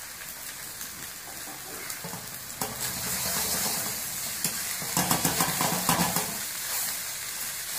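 Rice frying in a hot steel wok with a steady sizzle, and a steel ladle stirring and scraping against the pan from about two and a half seconds in, clattering most about five seconds in.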